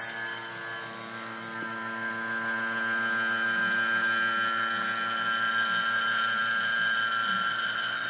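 Vacuum pump running steadily as it evacuates the chamber, getting a little louder over the first few seconds as the gauge needle swings toward full vacuum.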